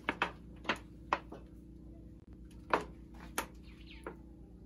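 About eight short, sharp clicks or taps at irregular intervals, over a steady low hum.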